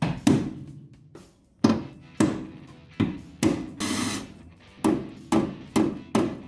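Hammer blows on a chisel against the rusted steel battery tray, freeing it from the car body: about ten sharp metal strikes at an uneven pace, each ringing briefly.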